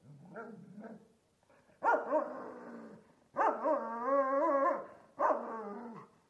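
Large, enraged dog growling low, then letting out three loud, drawn-out barks, the middle one longest with a wavering pitch.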